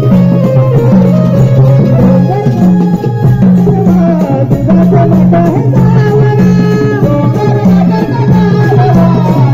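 Loud live Konkani folk music: a keyboard-led melody over a steady pulsing beat with rattling percussion.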